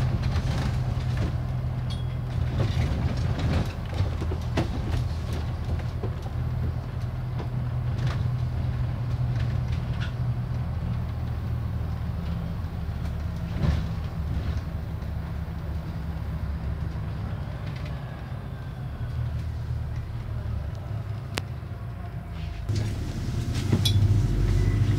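Double-decker bus engine running with a steady low drone, heard from inside on the upper deck, with frequent rattles and clicks from the bodywork. The engine grows louder near the end.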